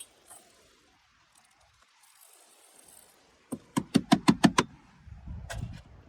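A quick run of about seven sharp knocks, some six a second, past the middle, then a low rumble with one more knock near the end.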